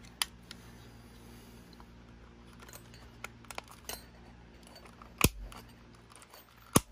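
Plastic case of a portable cassette player being handled and pressed shut: small scattered clicks, then two sharp snaps, about five seconds in and again near the end, as the back cover clips into place.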